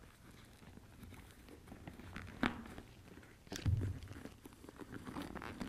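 Faint handling noise from a motorcycle helmet being reassembled: the fabric-and-foam liner rustling as it is pressed back into the shell, with a few sharp knocks and a heavier thump a little past the middle.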